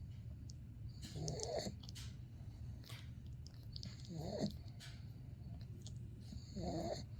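Pug snoring in her sleep: three noisy, pitched snoring breaths, one about every two and a half to three seconds, over a steady low hum.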